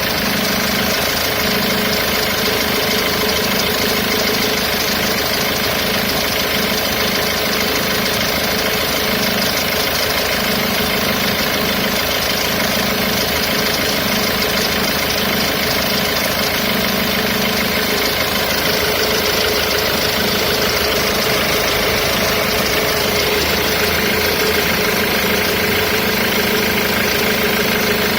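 Ford Mondeo Mk3 2.0 TDCi four-cylinder diesel engine idling, with a strange extra noise that swells and fades every second or two, a noise that lasts only until the engine has warmed up.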